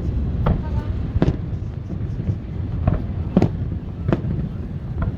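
Aerial fireworks shells bursting in the sky: about six sharp bangs at uneven intervals over a steady low rumble.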